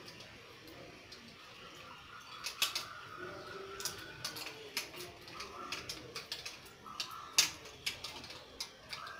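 Irregular sharp clicks and taps of fish being cut on a boti, a floor-mounted cutting blade, with the pieces handled against metal bowls.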